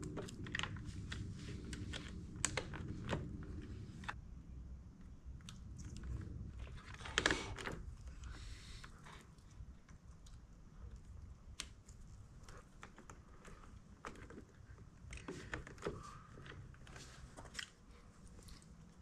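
Small plastic clicks and rustles of wiring-harness plug connectors and wires being handled and pushed together, with a sharper click about seven seconds in.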